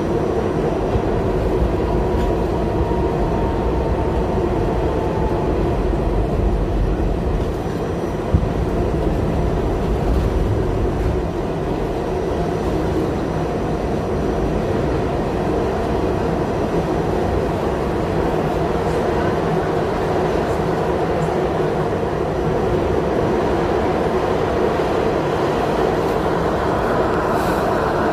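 R68A subway train running at speed through a tunnel, heard from inside the rear car: steady wheel-on-rail noise. A faint whistling tone slides slightly down in pitch over the first few seconds, and there is a single sharp knock about eight seconds in.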